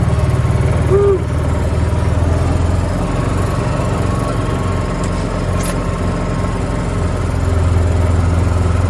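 A small vehicle's engine running steadily as it drives along, with an even low pitch throughout.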